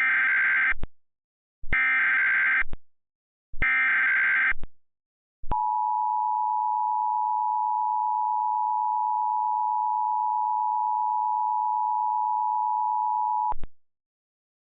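Three one-second bursts of Emergency Alert System SAME header data, about two seconds apart, which encode the alert. Then the EAS two-tone attention signal holds steady for about eight seconds and cuts off abruptly.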